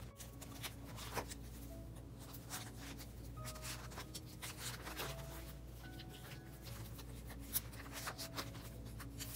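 Faint rustling and small clicks of photocards being handled and slid into plastic binder sleeve pockets, coming irregularly.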